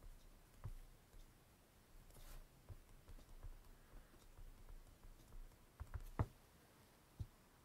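Faint taps and clicks of a stylus on a tablet screen while handwriting, with one sharper tap about six seconds in.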